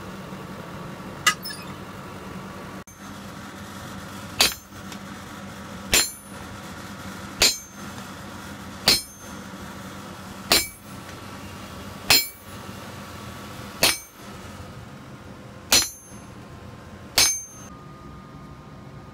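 Hammer blows on a red-hot knife blade on the anvil as the fuller is forged into it: about ten sharp ringing strikes, evenly spaced roughly a second and a half apart.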